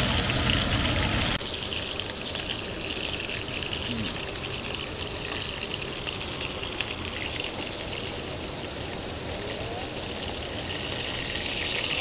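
Beef hamburger patties sizzling in hot oil in a frying pan: a steady hiss with fine crackling spatter. A louder rush in the first second and a half cuts off suddenly.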